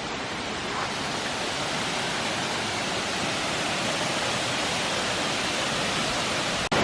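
Small waterfall's falling water rushing steadily. It cuts out for an instant near the end.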